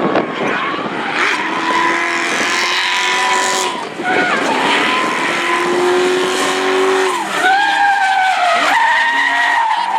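Drift car's engine revving hard, with tyres squealing and skidding as it slides. The revs dip and climb again about four seconds in, and again near seven and a half and nine seconds.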